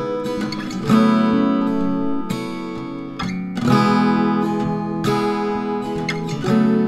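Acoustic guitar music: strummed chords ringing on, with a fresh strum about every three seconds.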